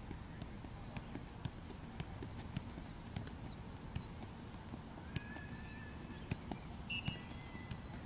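Soccer ball being kicked up repeatedly in keep-ups: dull thuds, roughly two a second and not quite even.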